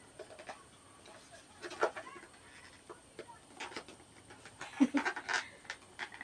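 Small clicks, taps and rustles of hands handling a phone and its plastic accessories, with a brief wordless vocal sound about five seconds in.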